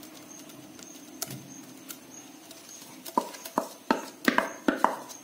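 Wooden spoon scraping thick ground toor dal batter out of a bowl into a steel pot. The first three seconds are soft, then come about seven sharp knocks of the spoon against the bowl and pot in the last two seconds.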